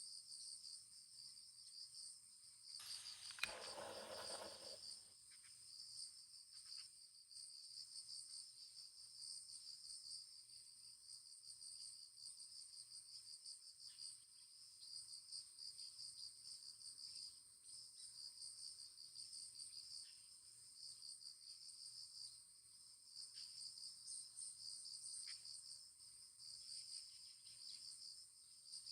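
Faint, steady chorus of crickets, a high pulsing chirring. About three seconds in, a brief noise of about two seconds stands out, with a sharp click in it.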